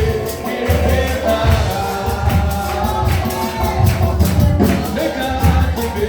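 A church music group singing a gospel song with band accompaniment: voices carrying the melody over a bass line and a steady percussion beat.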